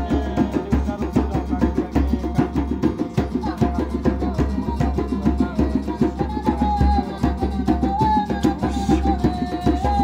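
Live hand-drum music: a djembe played with a fast, steady beat, with a long held high note sounding above it.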